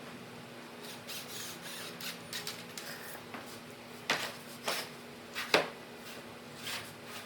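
Scattered short scrapes and squeaks of wood being worked and handled, with three sharp knocks between about four and five and a half seconds in; the last knock is the loudest.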